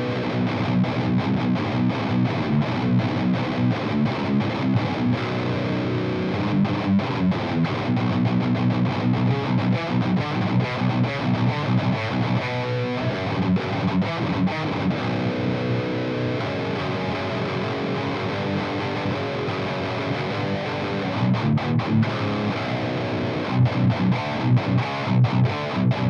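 Electric guitar through a Dan Gower-modded Marshall JMP head, driven hard by an overdrive pedal and heard through a single miked Celestion V30 speaker. It plays heavily distorted low rhythmic riffs with chugging strikes and abrupt stops, and the chugs grow louder and more accented near the end.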